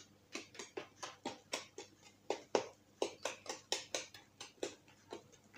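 Spoon stirring a thick flour-and-kefir batter in a bowl by hand, a rhythmic wet scraping and tapping at about four strokes a second as the flour is worked into an even mass.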